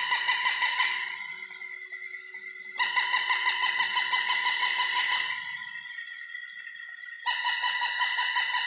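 Battery-operated plush walking puppy toy giving its electronic bark through a small speaker: rapid, buzzy, pulsing yaps in three bursts of a couple of seconds each, one ending about a second in, one in the middle and one starting near the end. Its walking mechanism whirrs faintly in the gaps.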